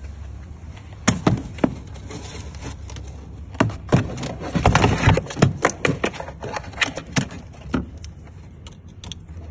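Hard plastic knocks, clicks and scrapes as a battery pack is pushed down into a ride-on car's plastic battery compartment and its wire connectors are handled. The knocking is busiest about halfway through, then thins out to small clicks.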